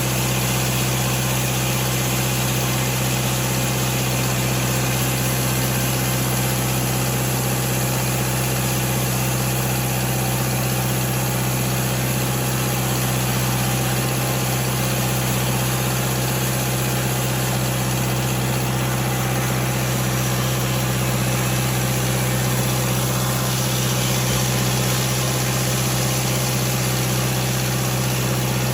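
Portable sawmill's engine running at a steady, even speed, with a constant low hum and no change in pitch or load.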